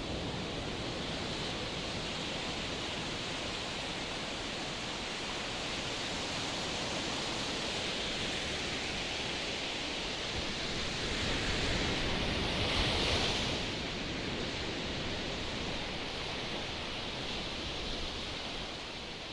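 Strong wind rushing over the sea, with surf, as a steady noise that swells louder about twelve seconds in and eases off again.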